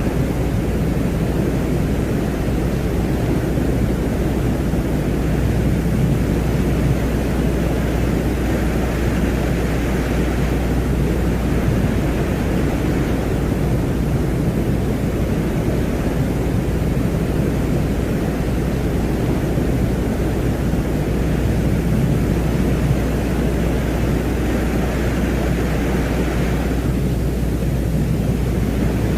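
Ambient 'sound of Venus' soundscape: a steady, deep rumbling noise like a low wind roar, with a fainter hiss higher up that swells and fades slowly every several seconds.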